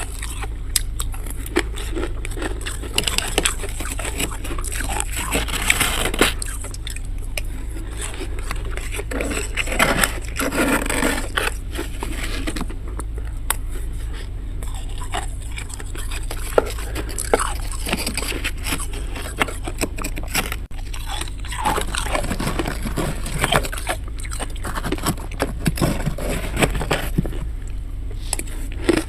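Thick freezer frost being scraped and crunched, with irregular gritty scrapes and sharp crackles over a steady low hum.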